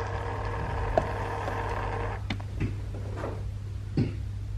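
Handling sounds at a Nespresso coffee machine over a steady low hum: a soft noise for the first two seconds or so, then a few light clicks and clinks of glass and jug as frothed milk is poured into a glass, the sharpest click about four seconds in.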